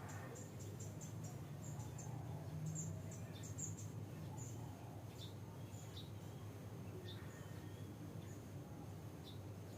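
Oriental magpie robin giving faint, short, high chirps in quick runs, thinning out over the second half, over a steady low hum.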